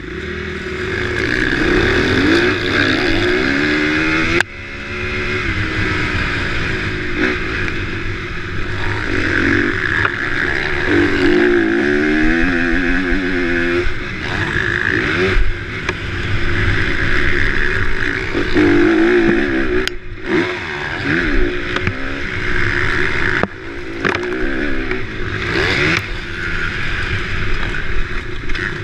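Motocross dirt bike engines revving hard, the pitch climbing and dropping back over and over as the bikes accelerate around the track.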